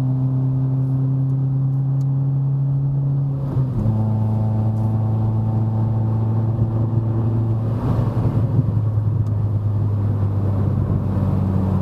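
Renault Sandero RS's 2.0-litre four-cylinder engine running through a louder-than-stock exhaust at steady revs, its note dropping in pitch about three and a half seconds in. Around eight seconds in a rougher, crackling burst comes through: the exhaust popping as the throttle is lifted.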